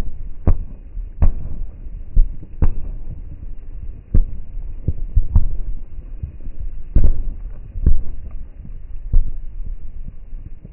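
Fireworks exploding: a string of dull booms at irregular intervals, roughly one every second, over a steady low rumble.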